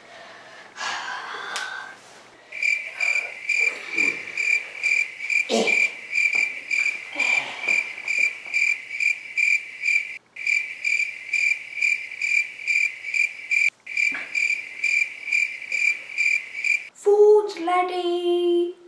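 Crickets chirping in an even rhythm, about three chirps a second, a night-time cue. A voice speaks briefly near the end.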